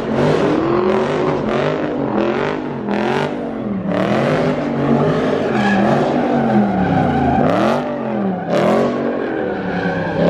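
A car doing donuts with its tires screeching: the engine revs climb and fall over and over, about once a second.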